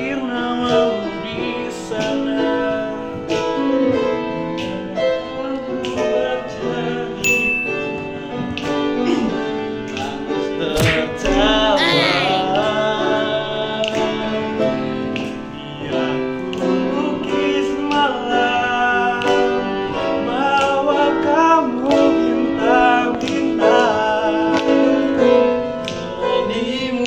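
A group of male voices singing a song together, holding long sustained notes.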